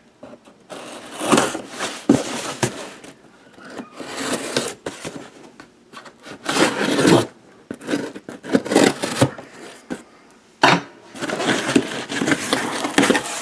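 Cardboard shipping box being opened and rummaged through: irregular scraping and rubbing of cardboard, with sharp knocks now and then, one near the end.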